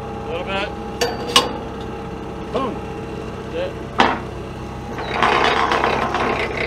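Three sharp metallic clanks, about a second in, just after, and again about four seconds in, over a steady engine hum, with faint voices. From about five seconds in a louder rough, noisy rush builds up.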